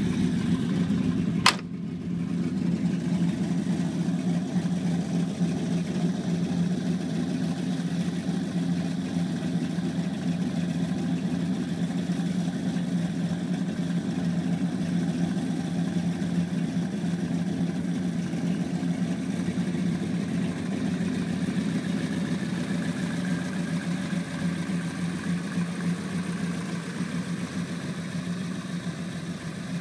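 The 1968 Chevelle Malibu's V8, fed through hood-mounted intake stacks, idling steadily. A single sharp bang comes about a second and a half in.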